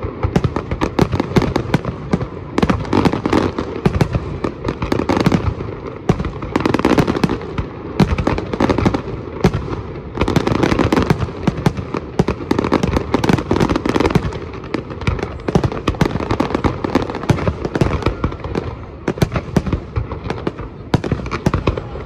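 A fireworks display: aerial shells and ground effects going off in a dense, continuous run of bangs and crackling, with a few louder swells along the way.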